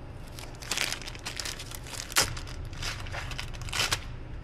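Clear plastic bag crinkling in irregular crackles as hands unwrap a new bolt from it, the loudest crackle about two seconds in.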